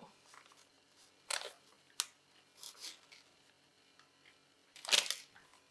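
A few short plastic clicks and rustles as hands work the tubing and quick-connect fitting on a reverse osmosis membrane housing cap, with a sharp click about two seconds in and the loudest brief scrape near the end.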